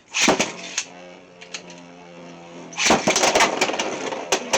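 Beyblade battle in a plastic stadium: a sudden rush of noise at the start, then a steady whirring hum of spinning tops. From about three seconds in, dense rapid clattering as the tops collide and grind against each other.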